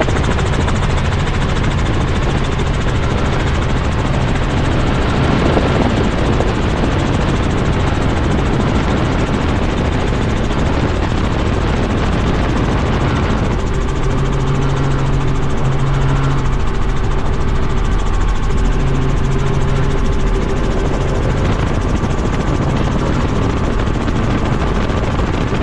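Tour helicopter in flight, its rotor and engine noise heard from aboard as a loud, steady drone, with a low hum that grows stronger about halfway through.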